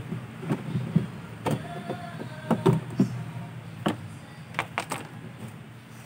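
The plastic rear cover panel of a twin-tub washing machine being worked loose and pulled off: a series of plastic knocks and clatters, with several in quick succession about four and a half seconds in.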